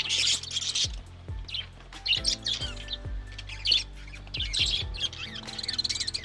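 Budgerigars chirping and warbling in quick bursts, over background music with held low notes and repeated falling bass swoops.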